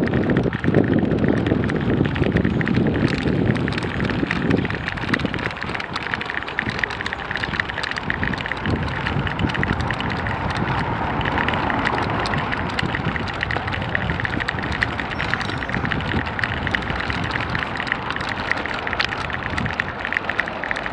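Motorcycle ridden slowly over cobblestone streets: engine and tyre rumble with a constant crackle from the cobbles and wind noise on the microphone, heavier rumble in the first few seconds.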